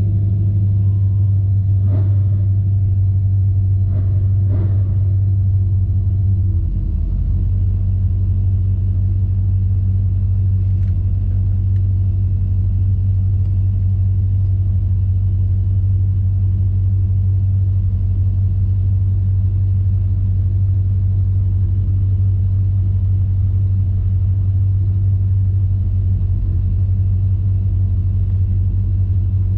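Stock 6.0-litre LQ4 V8 in a Chevrolet S10 pickup, heard inside the cab, running steadily at low speed without revving, with a slight dip in level about six seconds in.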